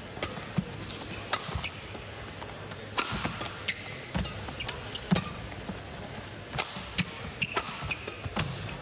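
Badminton rally: rackets striking the shuttlecock with sharp cracks at irregular intervals of about a second, mixed with thuds of players' feet on the court, over a steady hall hum.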